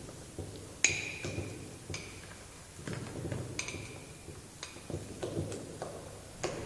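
A spoon clinking and scraping against a china plate, with several short knocks, two of which ring briefly, over the soft stirring of a batter mixture in a plastic bowl.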